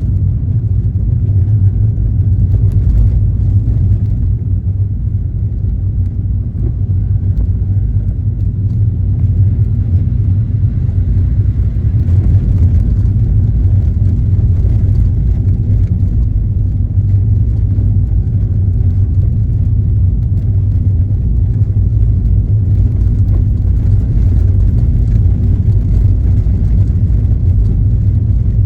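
Steady low rumble of a car on the move: engine and road noise from tyres on the road surface, without much change for the whole stretch.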